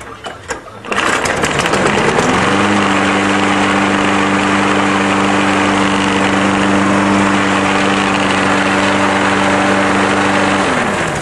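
Briggs & Stratton Quantum 4.5 XE lawn mower engine catching about a second in, speeding up, then running steadily at one speed. It runs cleanly after its water-contaminated gas was drained and its clogged carburetor main jet cleared. Near the end it is shut off and winds down.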